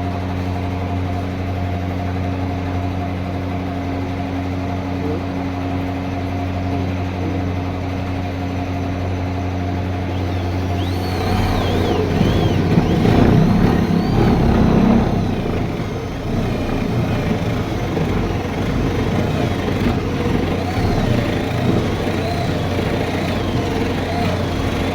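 Woodworking machine's electric motor running with a steady hum. About eleven seconds in, a louder, rougher noise joins it for a few seconds as the machine cuts into the wood.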